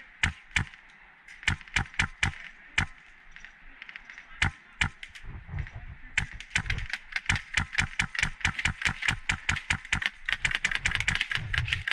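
Airsoft gun being fired in sharp snapping shots: a few spaced shots at first, then rapid strings of about four to five shots a second from about six seconds in.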